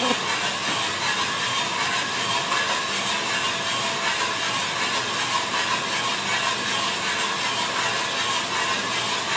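Small drum coffee roaster running mid-roast: a steady, even rush of the turning drum and its fan, with the rattle of beans tumbling inside the drum.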